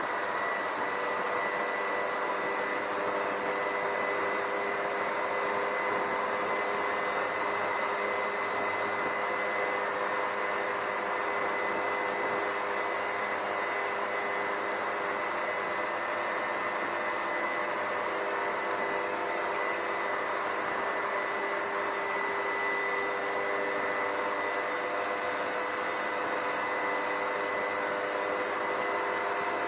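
Vehicle driving through a road tunnel: steady road and running noise, with a constant whine held at the same pitch throughout.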